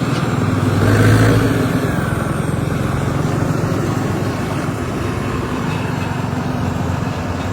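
Sonalika RX 60 tractor's diesel engine running steadily while the tractor drives along towing a hitched cart, with a low engine hum and road rumble; the engine note swells briefly about a second in.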